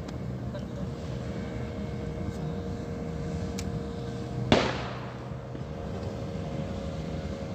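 A boat's motor running steadily, with a single sharp bang about four and a half seconds in.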